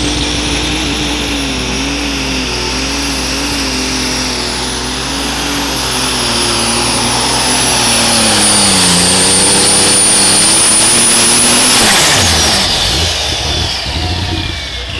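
Super stock pulling tractor's turbocharged alcohol engine at full throttle pulling the sled, with a high, steady turbo whine over a wavering engine note that sags about nine seconds in as the load builds. About twelve seconds in the throttle is cut, the engine note drops away and the turbo whine winds down.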